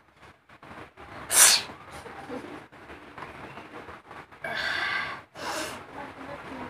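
A woman sneezing, set off by sniffing pungent green chillies: one sharp, loud sneeze about a second and a half in, then a longer breathy sound and a second, quieter sneeze near the end.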